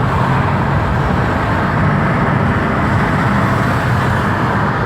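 Steady car cabin noise while driving: engine drone and road and tyre noise heard from inside the car.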